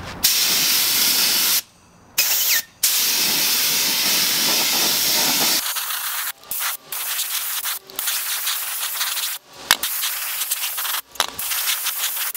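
Air-fed gravity-cup spray gun spraying polyacrylic sealer, a loud hiss of air and atomised finish. It stops and starts many times: a pause of about half a second near the two-second mark, then a string of brief breaks in the second half.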